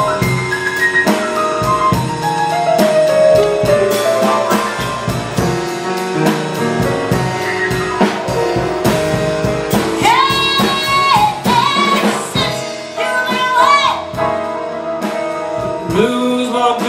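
Live jazz band with piano and drum kit playing, and a woman singing long, wavering notes with vibrato that come in about ten seconds in.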